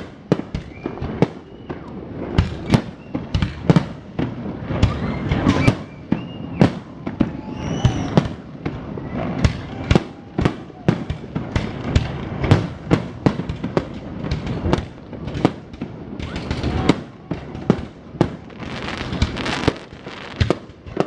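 Aerial fireworks going off in a rapid, uneven string of sharp bangs, often several a second, with a stretch of dense crackling near the end.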